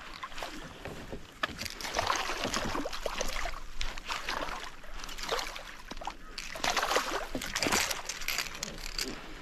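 Water sloshing and splashing around a small fibreglass boat, in uneven swishes.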